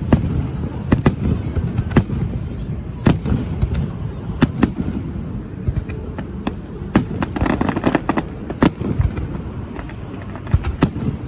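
City fireworks display: aerial shells bursting in an irregular run of sharp bangs over a constant low rumble, with a denser cluster of cracks about seven to eight seconds in.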